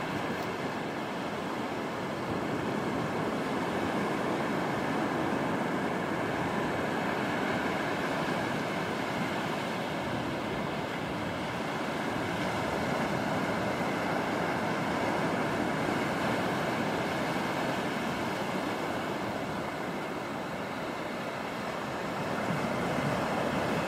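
Small surf waves breaking and washing up a shallow sandy beach: a steady rushing of water that swells and eases slowly.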